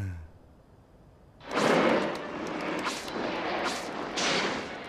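Action video game combat sound effects: after a short quiet, a loud burst of crashing, blast-like noise full of rapid hits begins about a second and a half in and keeps going.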